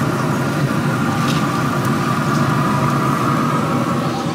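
Steady whirring hum with a constant whine from the combustion fan of a Pit Boss Pro Series wood-pellet smoker-grill running at cooking heat. The hum gets a little quieter near the end.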